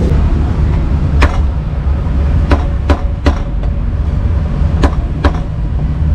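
Heavy meat cleaver chopping braised pork offal on a thick round wooden chopping block: about six sharp knocks, spaced irregularly, some in quick pairs. A steady low rumble of street traffic runs underneath.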